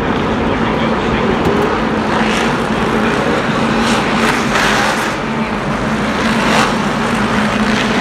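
A field of NASCAR Cup Series stock cars with pushrod V8 engines, running in a pack at pace-car speed. They make a steady loud drone, and several cars swell louder as they pass.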